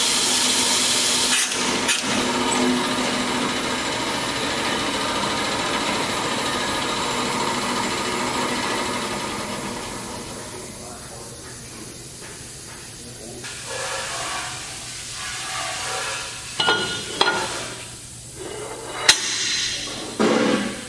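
Roll-In TF1420 pneumatic-feed vertical bandsaw: a loud air hiss cuts off about a second and a half in, and the machine's steady running sound then fades away over several seconds. Near the end come sharp metallic clicks and knocks as the bandsaw's vise is worked by hand.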